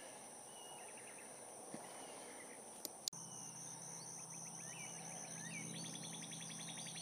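Quiet woodland ambience: scattered bird chirps, with an insect's fast, even trill starting near the end. Two faint clicks about three seconds in are followed by a low steady hum.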